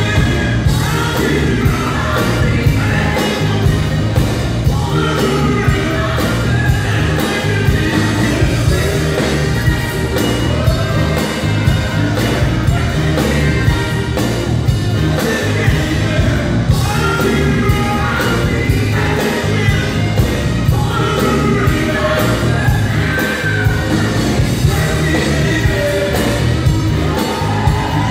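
Live pop band playing an upbeat song with a steady beat, a male lead singer singing over it.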